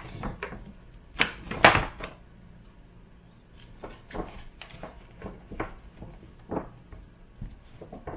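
Boxes and packaging being handled and taken out of a delivery bag: two sharp knocks and rustles about a second and a half in, then lighter scattered taps and clicks.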